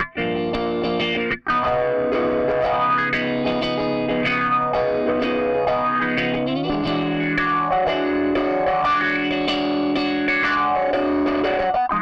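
Electric guitar played through a chain of effects pedals into an amp, with overdrive, playing held chords that change every second or two. There is a brief gap about a second and a half in.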